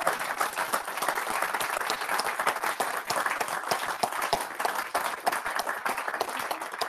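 Audience applauding: many people clapping at once, thinning slightly near the end.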